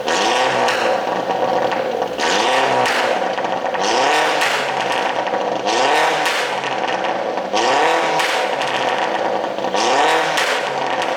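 2013 MINI Cooper JCW R56's turbocharged 1.6-litre four-cylinder being blipped over and over, about every one and a half to two seconds. Each rev rises and falls back with crackling pops from the exhaust on the overrun, the sign of an ECU tune set up to make the exhaust pop.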